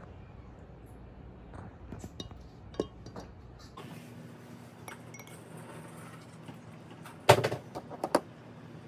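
Light clicks and clinks of chicken eggs being handled and dipped into a glass measuring cup of water, with a sharp, loud clink about seven seconds in and a smaller one about a second later.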